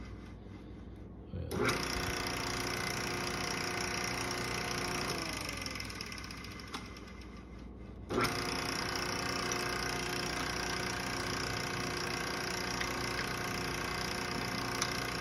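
Campbell Hausfeld airless paint sprayer's electric pump motor being cycled while priming. It is switched on about a second and a half in and runs steadily, then winds down with a falling pitch. About eight seconds in it is switched on again and runs steadily. The motor runs but the pump is not building pressure.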